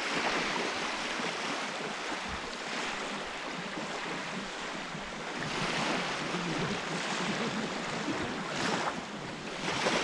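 Small sea waves breaking and washing up onto the shore, a steady rush of surf that swells every few seconds as each wave runs in.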